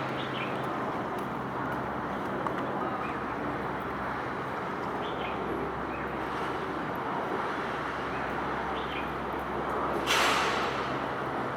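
Steady rumble of road traffic, with one short sharp hiss about ten seconds in that fades away.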